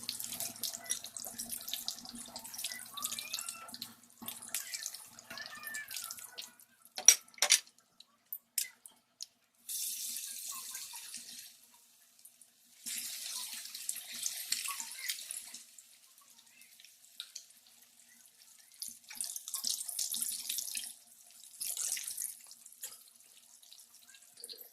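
Kitchen tap running into a sink in several separate spells, turned on and off, with water splashing, and a few sharp knocks about seven seconds in.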